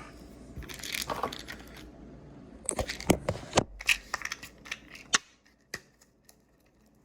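Pain-reliever tablet packaging being handled to get two tablets out: a crinkling rustle about a second in, then a run of sharp clicks and crackles for a few seconds.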